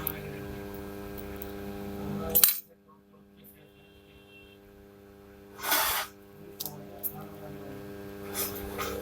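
Sharp metallic clicks and clinks over a steady electrical hum. A loud click comes about two and a half seconds in, then the hum cuts out for about three seconds, and a louder rustling clatter comes just before the six-second mark.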